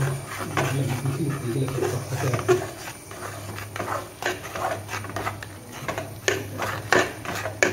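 Steel spoon scraping and knocking against the sides of an aluminium pot as wheat flour is stirred into a thick mudde dough, in irregular clicks that come thicker and louder after about four seconds.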